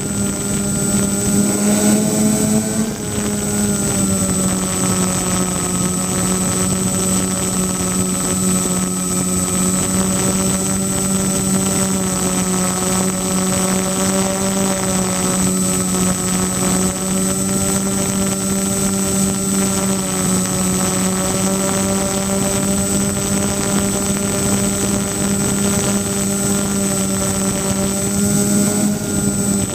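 Twin 1000KV brushless electric motors spinning 10x6 propellers on a foam-board RC plane, heard from the camera on board: a steady propeller drone that drops in pitch about three seconds in and rises slightly near the end.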